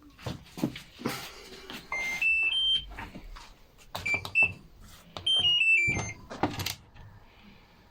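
LG washing machine's control panel beeping: a rising three-note chime about two seconds in, two short beeps near the middle, and a falling run of notes about five seconds in, with clicks and knocks of handling between them. The control board is powering up and responding after its blown fuse was replaced.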